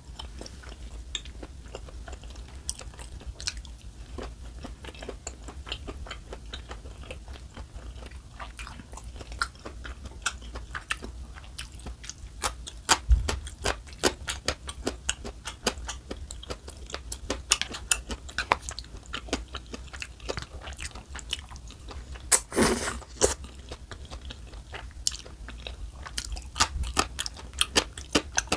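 Close-miked chewing of a mouthful of noodle tteokbokki: steady wet chewing and mouth clicks, with louder crunchy bites a few times, a longer noisy burst about three-quarters through, and quicker chewing near the end.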